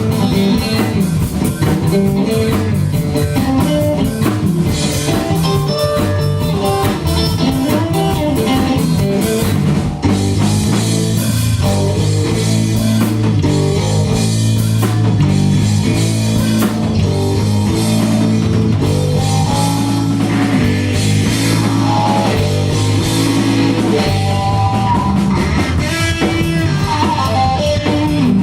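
Live rock band playing an instrumental passage between sung verses: guitar over bass and drum kit.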